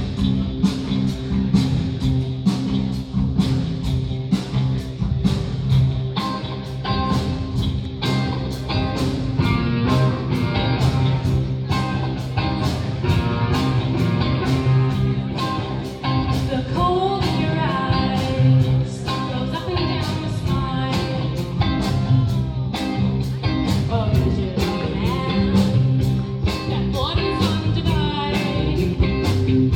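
Live band playing through a PA system: a steady drum beat with guitar and bass, joined by women singing from about ten seconds in.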